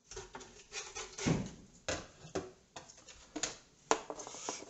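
Spatula scraping under salmon fillets on a nonstick electric skillet and clacking against a thin black plastic tray: irregular scrapes and sharp knocks, the loudest about a second and a half in and just before four seconds.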